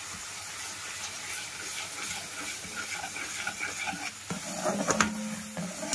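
Milk sizzling and hissing in a hot pan of butter-and-flour roux as it is stirred with a metal perforated spoon. A few sharp scrapes or clinks of the spoon come about five seconds in.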